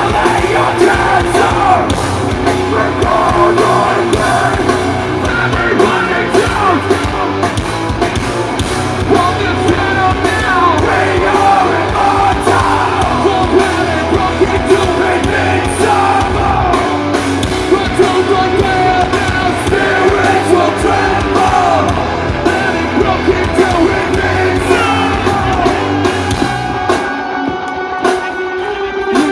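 Live alternative metal band playing loudly, with vocals over electric guitars, bass and drums. Near the end the low end drops away and the guitar carries on more alone.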